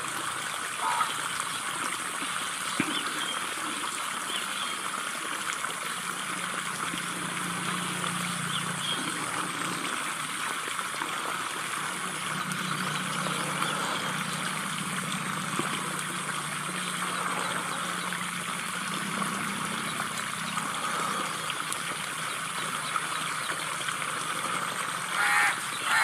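Steady outdoor background noise: an even hiss with a thin high whine over it and a faint low hum. A brief, louder pitched sound comes near the end.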